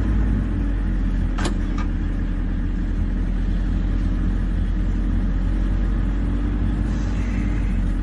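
Vehicle engine idling with a steady low running sound, and one short sharp click about one and a half seconds in.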